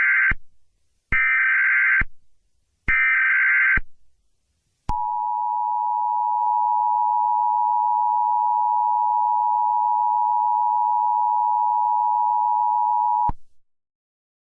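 Emergency Alert System tones. First come the end of one and then two more of the three short warbling data bursts of the SAME header, each about a second long. Then the two-tone attention signal holds steady for about eight seconds and cuts off suddenly, the signal that an emergency message follows.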